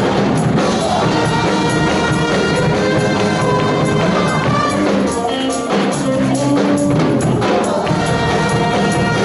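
Upbeat live praise-and-worship music from a church band, with a steady beat.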